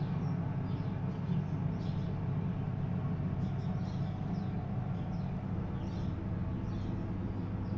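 A steady mechanical hum, deep and even, that starts abruptly just before and runs on without change, with faint high chirps heard now and then above it.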